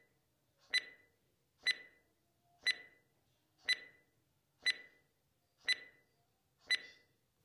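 Countdown timer sound effect: a short, ringing tick about once a second, seven in all.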